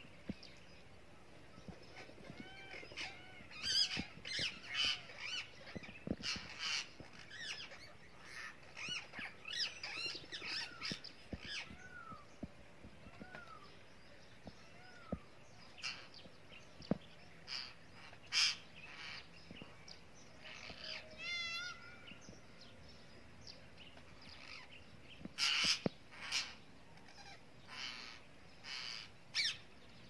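Rose-ringed parakeets calling: bursts of short, arched squawks and chirps, busy for the first dozen seconds, sparser in the middle, and with a loud cluster of sharp calls near the end.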